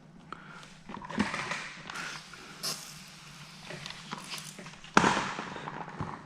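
Scraping and rustling of hands and a squeegee working paint protection film down onto a car bumper, in several short strokes. A sharp knock comes about five seconds in.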